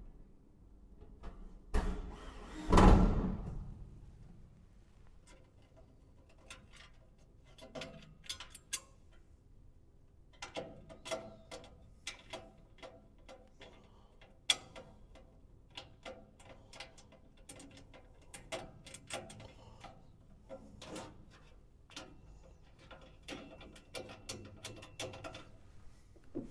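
A Makita cordless drill runs in two short bursts about two and three seconds in, driving screws into the steel cart body; the second burst is the loudest. After that come scattered light clicks and metallic taps as screws and brackets are handled and fitted by hand.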